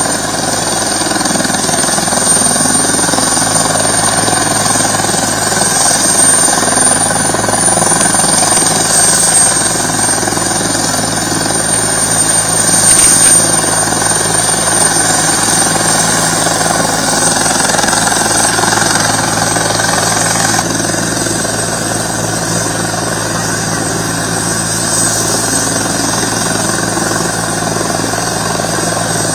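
Helicopter running on the ground: a loud, steady, high-pitched turbine whine over constant engine noise.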